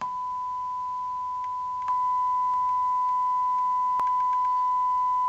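A steady pure test tone played through a speaker by a Nakamichi IA-1z amplifier. It starts suddenly as the volume is stepped up from zero, then barely changes in level as the setting climbs, because the amplifier is stuck at full volume. There is a sharp click about four seconds in.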